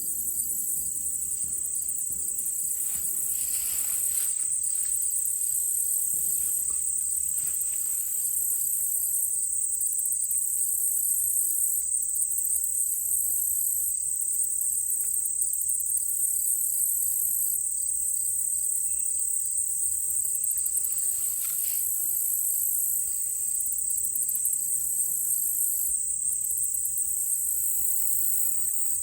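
Insect chorus: a steady, high-pitched trilling drone of crickets, with a fainter, evenly repeated chirp running underneath.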